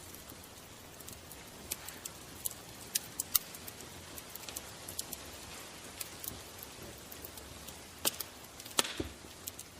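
Crackling fire: irregular sharp pops and snaps over a steady hiss, with a few louder cracks.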